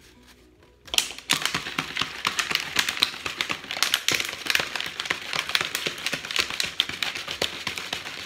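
Thin plastic water bottle crinkling and crackling as it is gripped and squeezed in the hands: a dense run of fast crackles that starts about a second in and keeps going.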